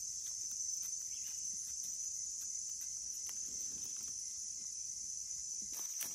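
Steady high-pitched insect chorus, with scattered faint rustles and clicks.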